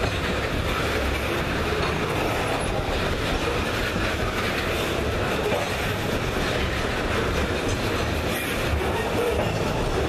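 Coal train's bathtub gondola cars rolling past close by, a steady rumble and rattle of steel wheels on rail.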